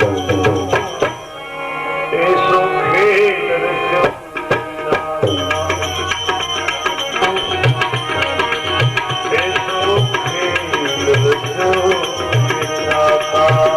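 Devotional bhajan music without singing: tabla playing a steady rhythm under sustained melodic accompaniment.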